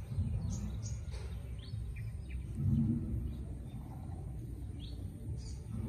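Small birds chirping now and then in short, high notes over a steady low rumble of outdoor background noise.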